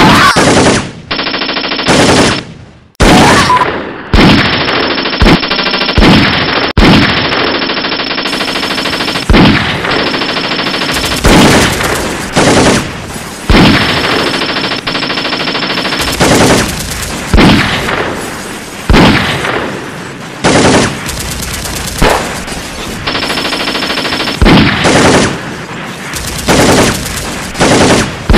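Machine-gun fire sound effects: bursts of automatic fire about every second, each trailing off in an echo, with a longer unbroken stretch of firing a few seconds in.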